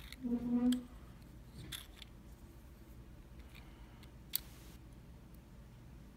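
Small clicks and taps of lock pins and tools being handled, a few separate sharp clicks with the sharpest about four seconds in, and a brief low hum near the start.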